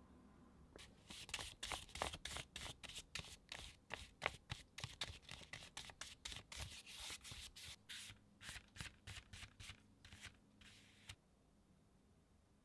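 Paintbrush spreading thick black paint across a paper journal page, in quick scratchy back-and-forth strokes, several a second. The brushing stops about eleven seconds in.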